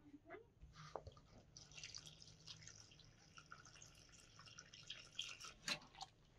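Water poured in a thin stream from a metal kettle into flour in a plastic basin, adding water for dough, with a sharp knock near the end.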